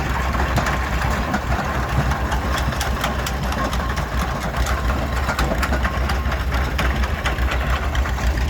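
An engine idling with a steady, low, pulsing chug and a light mechanical clatter.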